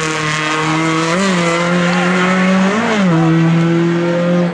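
Race car engine held at steady high revs, with two short throttle blips about a second apart in the middle and the revs dropping right at the end.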